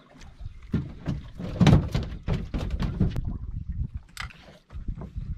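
Irregular knocks and thuds on a small boat's deck and hull, the loudest a heavy thump about a second and a half in.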